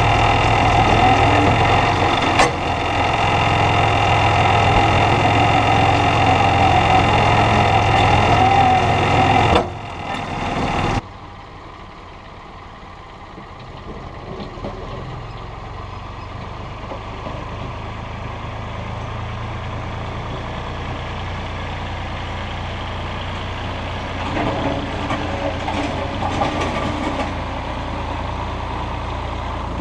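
IHC 423 tractor's diesel engine running, heard close up at first with a steady whine over it. About ten seconds in the sound cuts away to the same tractor heard from further off, quieter and steady. It swells briefly a few seconds before the end.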